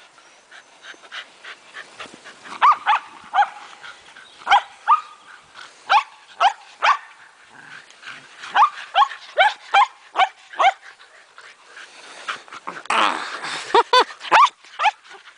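Shetland sheepdogs barking during play: a run of short, sharp, high-pitched barks, often a couple a second, then a louder, rougher burst of barking close up near the end.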